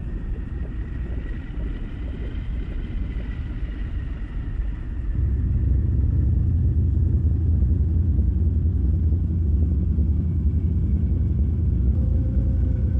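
Steady low rumble that grows louder about five seconds in, with a faint high whine fading out over the first few seconds.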